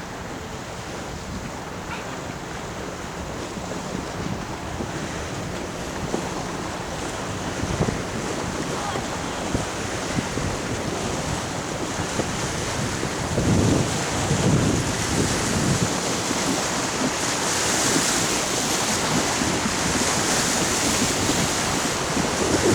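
Wind buffeting the microphone over a steady rush of water at the shore. The noise grows gradually louder, with heavy gusts about two-thirds of the way through.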